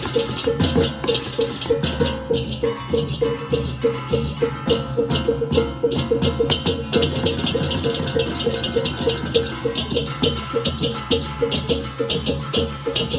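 Balinese baleganjur gamelan playing: crash cymbals (cengceng) clashing rapidly over drums and gongs, with a steady metallic beat about four times a second.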